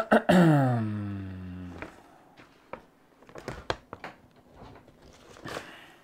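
A man's long voiced groan falling steadily in pitch, followed by a few scattered light clicks and taps of paper and parts being handled.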